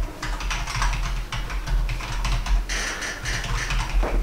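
Typing on a computer keyboard: quick, irregular key clicks over a low steady hum.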